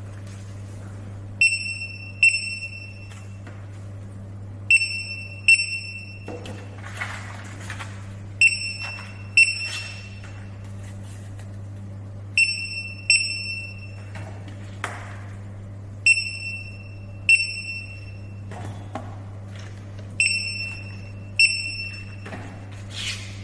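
Desktop omnidirectional barcode scanner beeping on each successful read: twelve short, high beeps in pairs about a second apart, each pair one product read twice. A steady low hum runs underneath, with faint rustling of packaging between the beeps.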